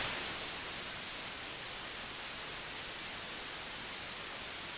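Steady static hiss, starting abruptly out of silence, a little louder for its first half second and then even.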